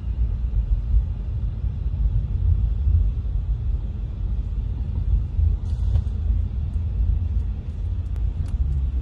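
Steady low rumble of a moving vehicle, with a short click about six seconds in and a few faint ticks near the end.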